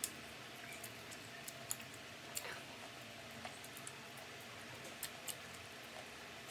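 A person eating crispy fried duck close to the microphone: scattered sharp clicks and smacks of chewing at irregular moments, over a faint steady hiss.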